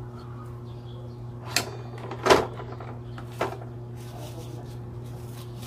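Three short clunks of parts and tools being handled during motorcycle shock work, the loudest a little past two seconds in, over a steady low hum.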